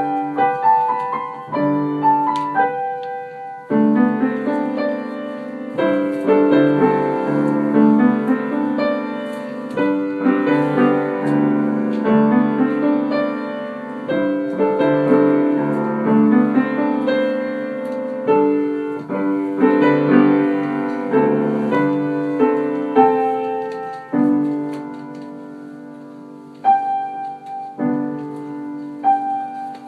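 Piano music: a run of struck notes and chords throughout.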